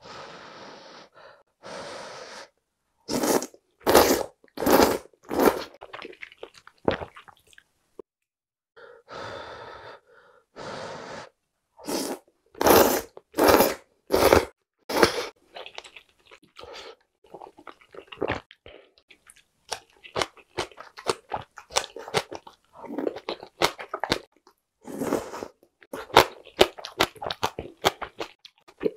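A person slurping spicy knife-cut noodles from a soup bowl, in runs of loud, quick slurps a few seconds in and again near the middle. Through the second half comes close chewing with many short, wet mouth clicks.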